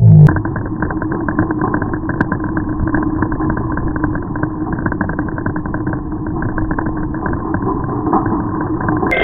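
Steady ride noise picked up by a camera on a moving bicycle: wind and road rumble with a constant low hum.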